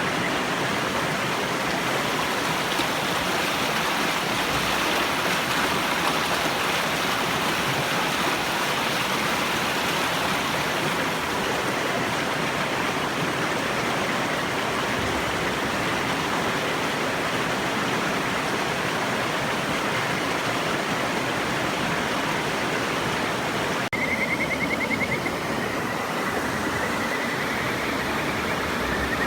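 River water rushing steadily. About 24 s in, a kajika frog (Buergeria buergeri) gives a high, pulsing trill, and it calls again near the end.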